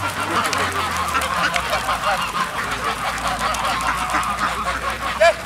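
A large flock of domestic ducks and geese calling all at once, many overlapping quacks and honks, with one louder call just before the end.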